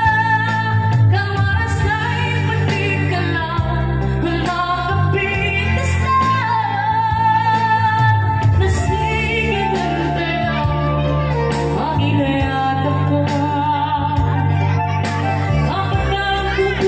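A woman singing into a microphone, holding long notes with vibrato, accompanied by a Yamaha electronic keyboard.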